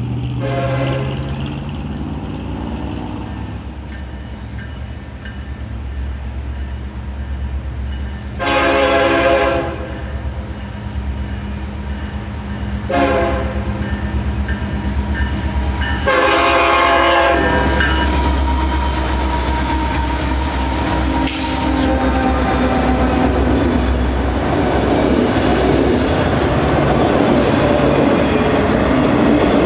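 Diesel freight locomotive blowing its horn in the grade-crossing pattern, long, long, short, long, over the low drone of its engine. The train then rolls past with a growing rumble and clatter of wheels on rail.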